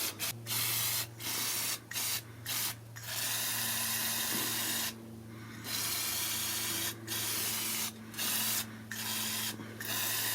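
Aerosol can of mass airflow sensor cleaner sprayed in a series of hissing bursts with short gaps, some brief and a few lasting a second or two. The spray is cleaning a dirty mass airflow sensor, whose lean condition caused the rough idle.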